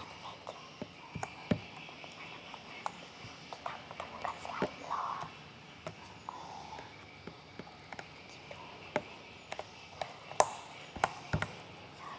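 Slime being squished and stretched by hand: irregular small wet clicks and pops, with a few squelches about four to six seconds in and a sharper snap near the end.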